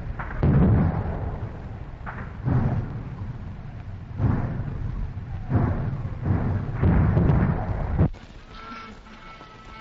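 1944 field recording of a British artillery barrage and German mortar fire about 150 yards off: a run of heavy, rumbling explosions, about six in eight seconds. The recording cuts off abruptly about eight seconds in, and faint steady bagpipe tones begin.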